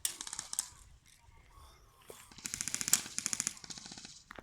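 Airsoft guns firing rapid full-auto bursts, heard as quick strings of sharp clicks. There is a short burst at the start and a longer, denser one from about two and a half seconds in.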